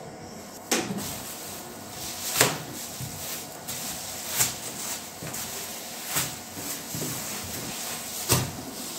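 Thin plastic bag rustling and crinkling as it is lifted and gathered up around rounds of rolled-out dough. Sharper crackles come about every two seconds.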